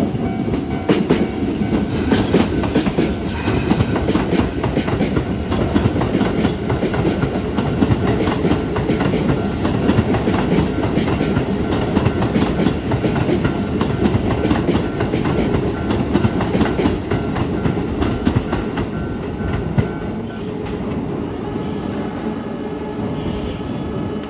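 Keisei 3400 series electric train passing over a level crossing, its wheels clattering rhythmically over the rail joints over a heavy rumble, while the crossing's warning bell rings as a steady tone. The clatter thins and drops a little about twenty seconds in as the last cars go by.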